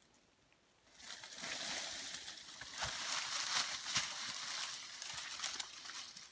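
Dry fallen leaves and twigs rustling and crackling under a person getting up off the ground with a heavy bundle of firewood on her back, starting about a second in and continuing as she stands.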